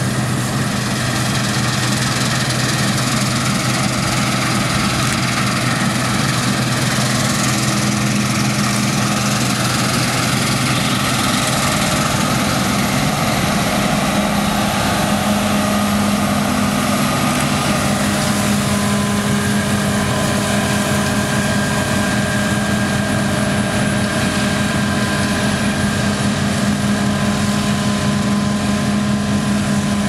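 Claas Lexion 740 combine harvester cutting wheat: a loud, steady drone of its engine and threshing machinery as it passes close by. About halfway through, the low hum gives way to a higher one.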